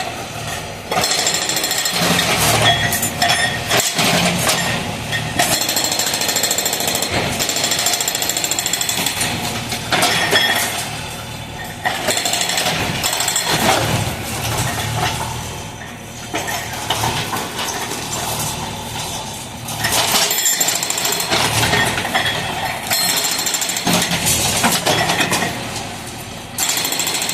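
Hydraulic breaker on an excavator hammering concrete, rapid blows in long bursts with short pauses between them.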